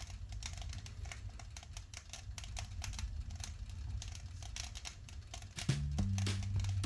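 Fir branches crackling and popping as they burn in a fireplace: rapid, irregular sharp snaps. Music with steady low notes comes in near the end.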